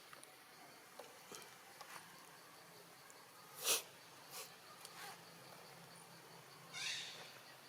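Faint steady background with a few short, sharp noises scattered through, the loudest a little past halfway, and a brief sound that rises in pitch near the end.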